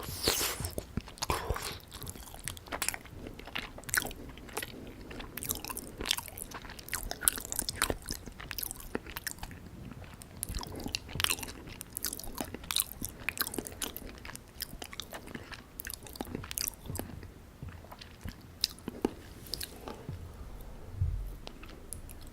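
Close-miked chewing and biting of syrup-soaked gulab jamun: wet, sticky mouth sounds with many short smacks and clicks.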